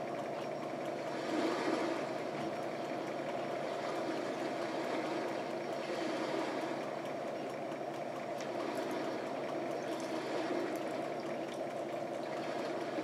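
Steady rushing background noise with a few faint clicks and mouth sounds of someone eating with a fork.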